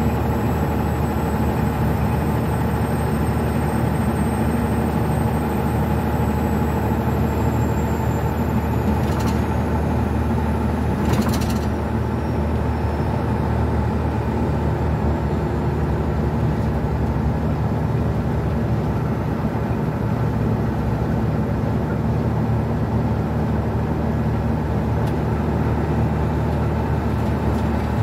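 Old International semi truck's diesel engine droning steadily, heard inside the cab at highway speed. A short sharp knock sounds about eleven seconds in, with a fainter one a couple of seconds before it.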